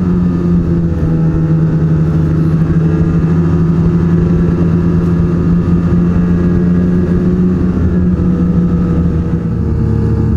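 Snowmobile engine running at a steady cruising speed, heard from the rider's seat, its pitch holding even throughout.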